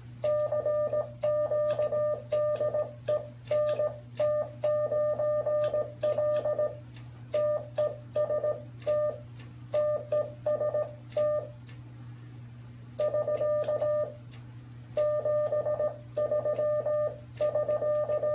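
Morse code sent fast on the paddle side of a Brown Brothers CTL-A dual key through a keyer: a mid-pitched beeping sidetone in runs of dits and dahs, with the paddle's contacts clicking. The sending breaks off for a longer pause about two-thirds of the way in, then resumes.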